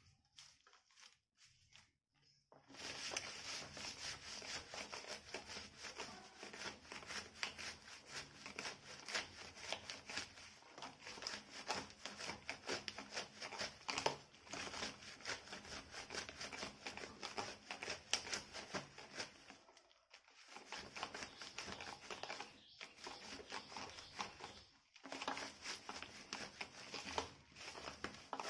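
Wilted roselle (ambadi) leaves rubbed and crushed by hand against the inside of a woven wicker basket: a dense, scratchy rustling that starts a couple of seconds in and keeps going, with short breaks about 20, 23 and 25 seconds in. The rubbing bruises the leaves and squeezes out their juice so that they don't crumble once dried.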